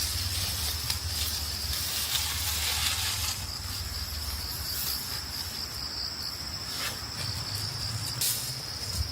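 Insects chirring in a steady, high-pitched drone, over a low rumble, with a few short rustles.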